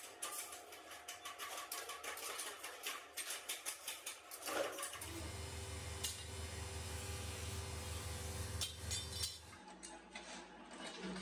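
Small stamped steel parts clinking and rattling in quick, uneven knocks. About five seconds in, this gives way to a steady low machine hum in the workshop for about four seconds.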